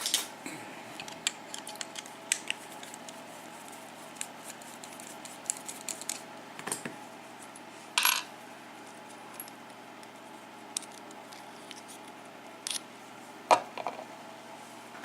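Scattered small metallic clicks and taps, with louder clinks about eight seconds in and near the end: a tool and the pin springs clicking against a Schlage KIK lock cylinder as the springs are worked out of its pin chambers.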